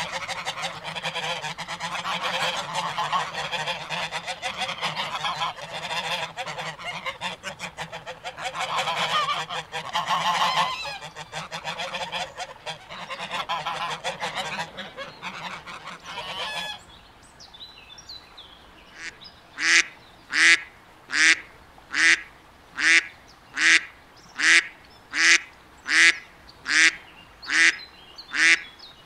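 Ducks calling over one another in a dense, continuous chatter that breaks off suddenly a little past halfway. Then a single bird quacks in a steady, evenly spaced series of loud calls, a little more than one a second.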